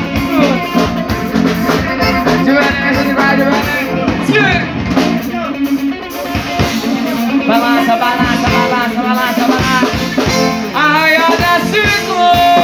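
Live forró band: a woman singing into a microphone over accordion, electric guitar, bass guitar and a drum kit keeping a steady beat.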